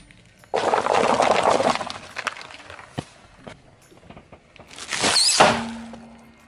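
Car tyre crushing a row of paper cups: a loud crunching crackle lasting about a second. Around the five-second mark a second loud crush, crinkling foil with a brief high squeal, as a tyre rolls over a gold foil balloon.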